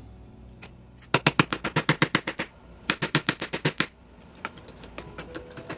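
The hammer face of an antique combination hammer-monkey wrench tapping rapidly on a wooden block. There are two quick runs of blows, about nine a second, with a short pause between, then a few light taps near the end.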